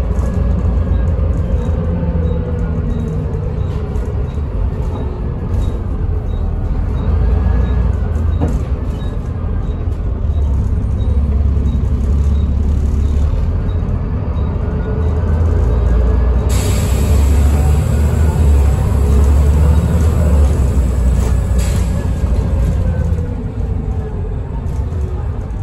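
Volvo B7TL bus's six-cylinder diesel engine and ZF automatic gearbox heard from inside the passenger saloon while the bus is under way, with a low engine rumble and a gearbox whine that rises and falls in pitch as the bus pulls away and changes gear.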